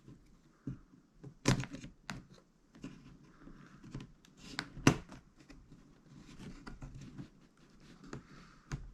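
Plastic clicks, knocks and rustling as the keyboard panel of an HP Pavilion laptop is worked loose and lifted by hand, with two sharper knocks about a second and a half in and near the middle.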